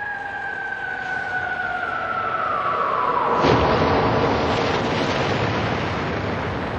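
War sound effect of an incoming shell: a whistle falling steadily in pitch for about three seconds, then an explosion about halfway through, its rumble slowly dying away.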